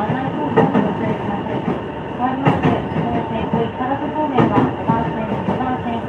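Interior of a JR East E233 series 5000 electric train running at speed: steady running rumble, with clacks as the wheels pass over rail joints.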